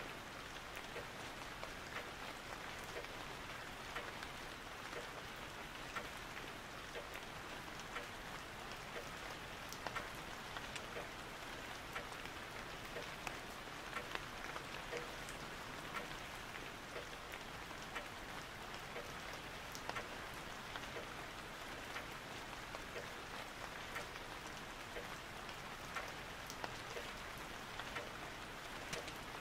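Steady rain pattering: an even hiss dotted all through with small, irregular drop clicks.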